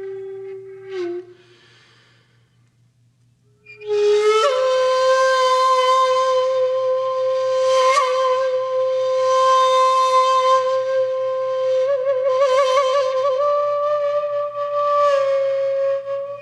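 Solo flute music played slowly in long, breathy held notes. A note trails off about a second in, and after a short pause a new note slides up into place about four seconds in and is held for a long time, wavering in a trill around twelve seconds before stepping slightly higher and settling back down.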